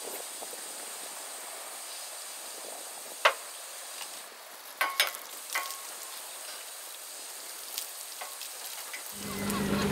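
Steady outdoor hiss with a few sharp knocks and metallic clinks as people climb about in a boat sitting on its trailer. Music starts near the end.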